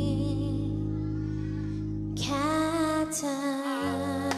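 A woman singing a slow, gentle song live into a microphone over held backing chords, a new sung line coming in about two seconds in.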